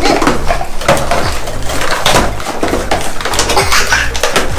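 Plastic toy packaging crinkling and clattering as it is handled and torn open, a busy run of close crackles and clicks, over low background music.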